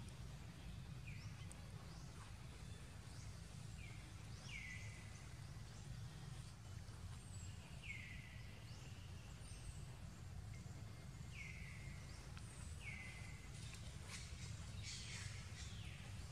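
Short high animal calls, each falling in pitch, repeated every few seconds over a steady low outdoor rumble.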